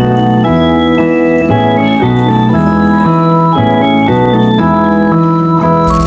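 Background music played on an electronic organ or keyboard: a bouncy tune with chords changing about twice a second.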